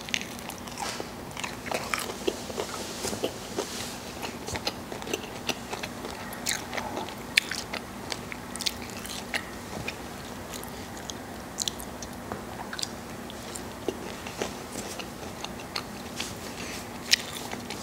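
A person chewing a crispy breaded chicken nugget, with irregular crisp crunches and mouth clicks all through.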